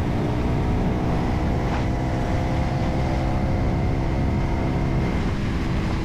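Motorcycle engine running steadily while riding up a mountain road, a constant even hum over a low rumble.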